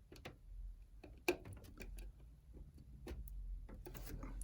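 Irregular small plastic clicks and taps of front-panel connector plugs and their thin cables being handled and pushed onto the motherboard's pin header, with one sharper click about a second in.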